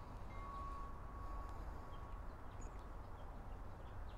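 Quiet outdoor ambience: a low steady rumble, a wind chime's single ringing tone that fades out about two seconds in, and faint scattered bird chirps.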